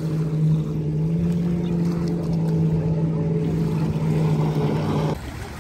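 A motorboat engine droning steadily at one unchanging pitch, cutting off abruptly about five seconds in.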